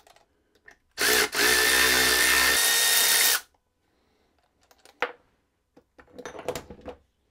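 Handheld power tool running steadily for about two and a half seconds, starting about a second in, as the centre main bearing cap bolt is undone. A few light metallic clicks of tool work follow.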